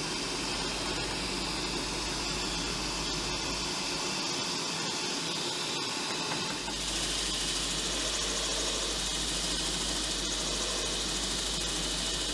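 Drill press running with a hole saw cutting into a wooden board. About seven seconds in the sound changes to a sanding drum in the drill press sanding the curved edge of a wooden piece held against it.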